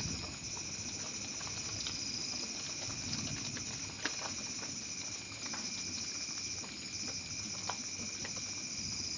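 Rain pattering steadily, with scattered sharp drops ticking over it and a steady high-pitched hiss running throughout.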